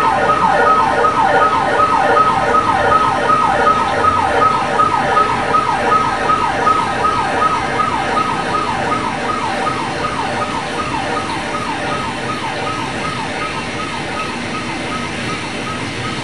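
A siren-like sound of quick falling pitch sweeps, about three a second, over a steady high tone, slowly fading away.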